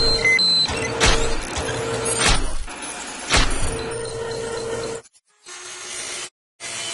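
Sound effects for an animated logo reveal: mechanical robotic-arm clanks about once a second, each followed by a steady whirring hum. After about five seconds it drops to a quieter hum, broken by two brief silences near the end.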